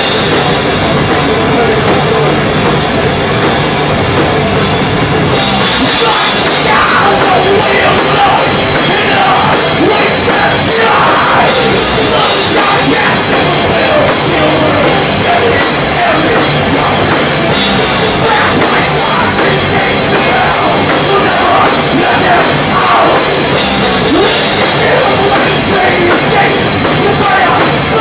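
A thrash metal band playing live at full volume, the drum kit and its cymbals to the fore.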